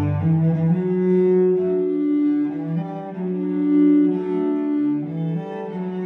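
Fiddle and cello duo playing a slow passage of long held bowed notes, the cello prominent, the notes changing about once a second.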